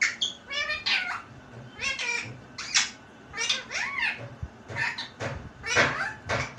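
Talking parrot imitating human speech in a string of short, high-pitched utterances with squeaky rising and falling inflections, about one burst a second.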